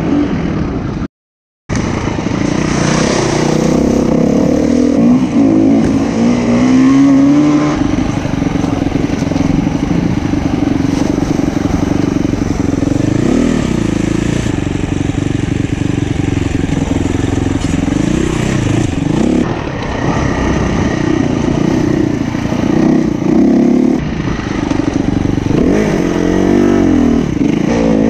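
SWM 300 RS enduro motorcycle's single-cylinder four-stroke engine being ridden hard, its pitch rising and falling again and again with throttle and gear changes. The sound cuts out completely for about half a second near the start.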